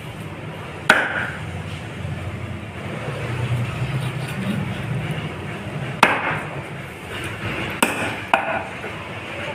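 Large curved cleaver chopping through grey emperor fish on a chopping block: four sharp chops, one about a second in, one around six seconds in, and two in quick succession near the end, over steady low background noise.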